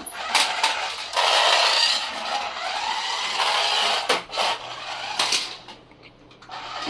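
Remote-control toy car driving and shoving a toy dinosaur along the floor: a steady scraping noise for a few seconds, then several knocks.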